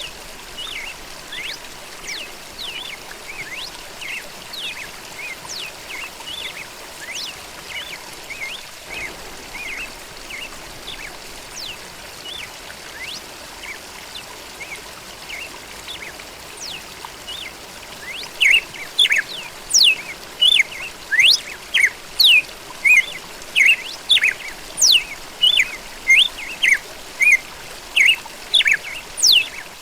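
Songbirds chirping with quick sliding whistled notes over a steady background hiss. A bit past halfway one bird starts calling much louder and more regularly, about three chirps every two seconds.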